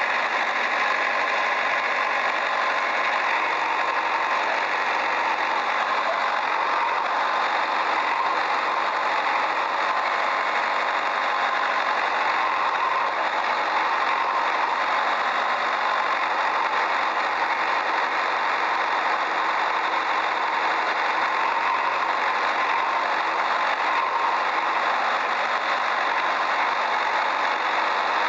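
Small toy vehicle motor running steadily, an even engine-like drone with no pauses or changes in speed.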